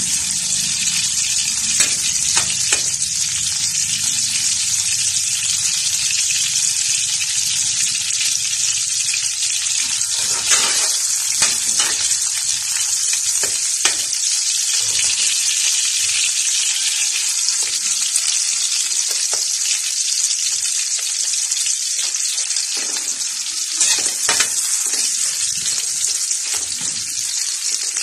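Food sizzling steadily in hot oil in a steel wok, stirred with a metal spatula. The spatula scrapes and knocks against the pan now and then, most busily around the middle and again near the end.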